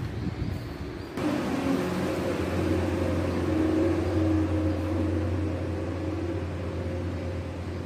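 A steady mechanical hum with a low drone and a noisy rush, starting abruptly about a second in, swelling slightly in the middle and easing off a little toward the end.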